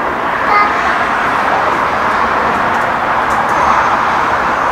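Steady rush of road traffic, a constant even noise with no single vehicle standing out.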